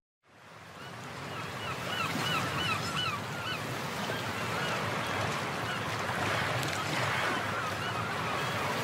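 Sea ambience: an even wash of surf fading in over the first two seconds, with a bird calling in a quick run of about six short cries, about three a second, around two to three seconds in.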